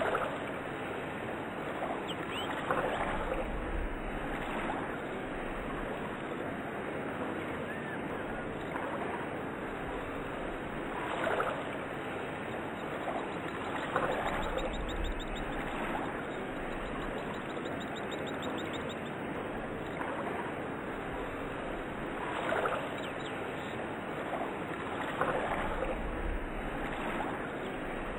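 Nature ambience of steady rushing water, with louder splashes every few seconds and a few faint bird chirps.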